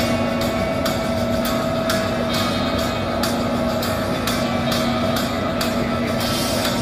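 Subway train running: a steady hum of two held tones with a quick, uneven run of clicks over it.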